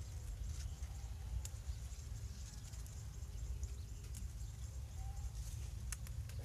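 Hands rustling through bok choy plants, with a few sharp snaps as leaves are picked off, over a steady low rumble.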